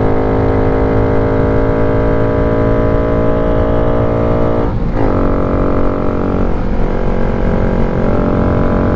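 2023 Honda Grom's single-cylinder engine, with an aftermarket exhaust, running under heavy load on a steep uphill; the rider says the bike is struggling and not liking it. The engine note climbs slowly, breaks briefly about halfway through and picks up again, over steady wind noise.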